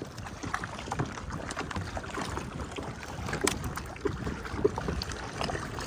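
Water splashing and lapping as a paddle is pulled through the lake beside an inflatable paddleboard, with small irregular drips and splashes. Wind rumbles on the microphone.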